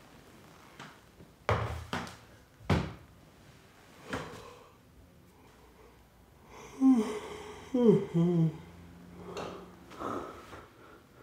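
A few sharp knocks and handling sounds, then a man's drawn-out weary groans, his voice sliding down in pitch, followed by heavy breaths.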